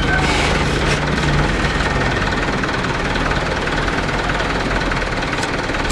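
Diesel truck engine running low and steady, with a deep hum under an even rumble.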